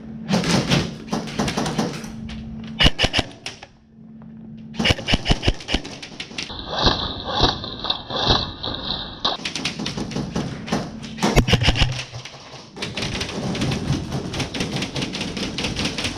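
Airsoft guns firing in rapid bursts of quick clicking shots, several strings lasting one to three seconds with short breaks between.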